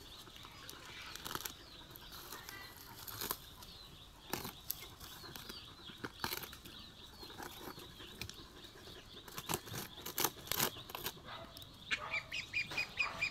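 A dog digging at a rat hole, its front paws scraping and scratching at loose soil and mulch in faint, irregular scrapes and rustles that come thicker near the end.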